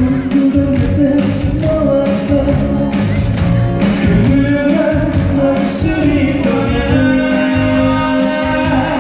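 Live amplified pop song with a steady beat, a lead voice singing the melody over a band backing.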